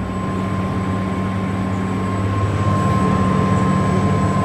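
Farm tractor engine pulling a sugar beet harvester, running steadily under load with a constant high-pitched whine over its low hum.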